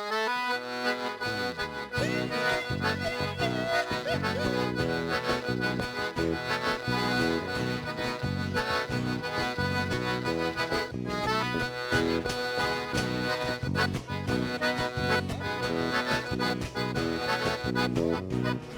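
Instrumental introduction of a gaúcho dance tune, led by the accordion (gaita) over a steady, regular dance beat and bass, before the vocals come in.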